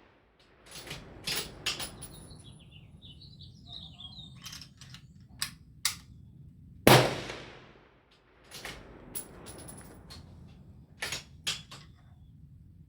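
A rifle shot about seven seconds in, its report rolling away over about a second. There are fainter sharp cracks in pairs before and after it, and a short bird call about four seconds in.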